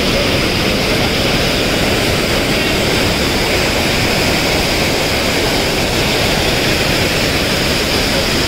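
Lake overflow pouring over a stepped weir: a steady, loud rush of cascading water.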